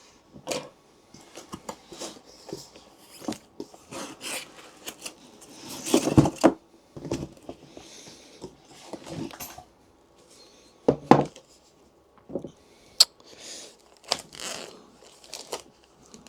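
Handling noise from unboxing: plastic packaging rustling and scattered knocks and clicks against a wooden box as its snug contents are lifted out, with sharper knocks about six and eleven seconds in.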